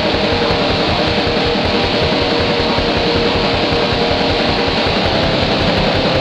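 Raw, lo-fi black metal: dense distorted electric guitar over fast, rapid-fire drumming, played loud and steady with a muffled sound that lacks top end.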